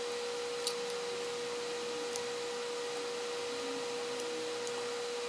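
A steady mid-pitched tone over a hiss, with a few faint sharp clicks of a hand screwdriver on small metal screws in a metal mounting plate.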